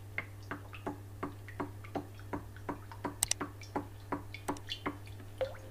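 Faint, regular mechanical ticking, about three ticks a second, each tick with a slight ring, over a low steady hum. One sharper click comes about three seconds in.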